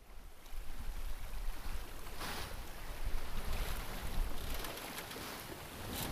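Water rushing along a Cape Dory 36 sailboat's hull under sail at sea, with wind buffeting the microphone; the water surges louder about two seconds in and again near the end.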